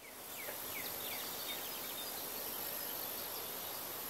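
Rural outdoor ambience: a steady high-pitched insect drone, with faint short bird chirps scattered over a soft hiss.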